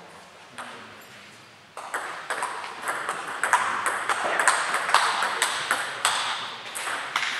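Table tennis ball clicking against bats and the table in a fast rally that starts about two seconds in, after a quieter moment with a single tap. The clicks come several a second and ring in the hall.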